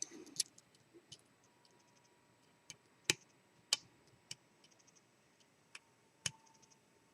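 Faint, irregular clicks and small quick ticking runs of a lock pick and tension wrench working the pin stacks inside a seven-pin Lockwood V7 padlock.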